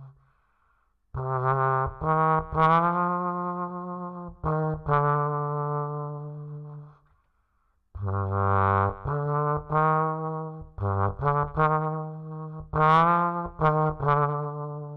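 Music: a single melodic lead line played in phrases of gliding, sustained notes, with two short breaks of near silence, one just after the start and one about halfway through.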